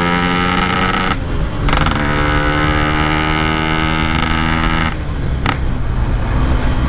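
Yamaha RX King's 135 cc two-stroke single-cylinder engine running at steady revs on the move. It drops out briefly about a second in, then holds steady again. About five seconds in it falls to a lower, rougher rumble.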